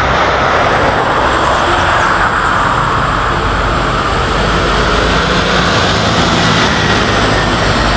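Highway traffic going past close by: a steady, loud rush of tyre and engine noise as a box truck and cars pass.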